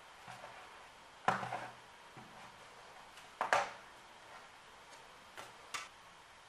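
A few sharp clicks and knocks of hard parts and tools handled during a laptop teardown. The two loudest come about a second in and about three and a half seconds in, with lighter clicks near the end.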